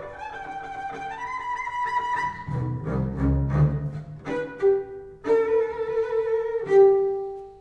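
Double bass played with the bow: a run of high, flute-like harmonic notes, a few low notes in the middle, and a final held note that rings and fades away at the end.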